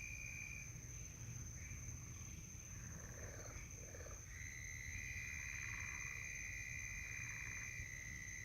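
Night insects trilling: several steady high-pitched trills overlapping, one dropping out early and another coming in about four seconds in, over a faint low rumble.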